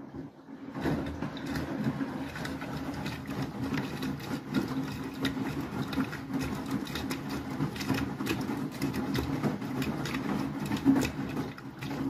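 Beko WTK104121W front-loading washing machine turning its drum in the rinse: a steady motor hum with water sloshing and splashing against the door glass, starting about a second in.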